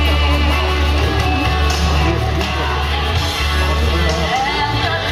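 Music: a song with a singing voice over a steady heavy bass.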